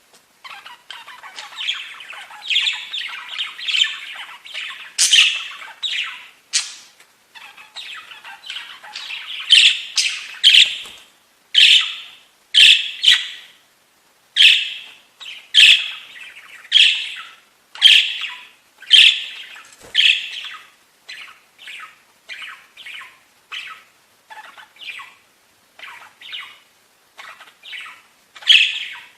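Budgerigars squawking and chattering: short, sharp, loud calls about once a second, with softer warbling chirps between them.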